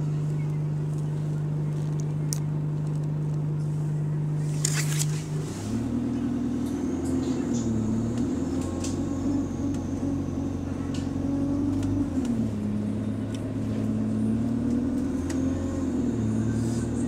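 Bus engine and drivetrain heard from inside the passenger cabin. A steady drone for about the first five seconds, with a short rattle near the end of it. Then the engine note rises and dips several times as the bus drives on, with a faint high whine over it.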